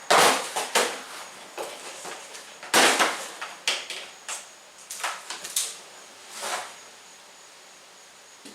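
A run of sharp knocks and clatters from handling the cracked, duct-taped windshield glass, loudest at the start and about three seconds in, then dying away after about six and a half seconds.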